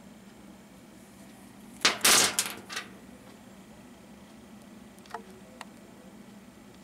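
A carbide burr bit being taken out of its clear plastic storage tube: a quick cluster of sharp plastic clicks and scrapes lasting under a second, about two seconds in. Two faint ticks follow about five seconds in.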